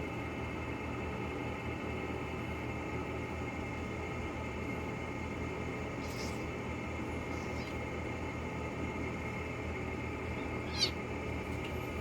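A kitten mewing: faint high squeaks around the middle, then one short, loud, high mew near the end, over a steady background hum.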